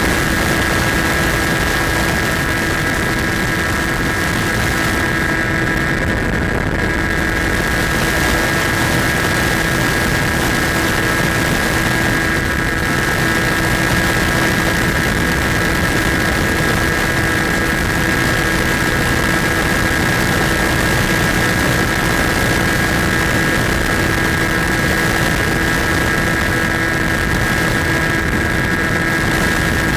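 Skywalker FPV model airplane's electric motor and propeller running at a steady, unchanging pitch, with a constant rush of air noise underneath.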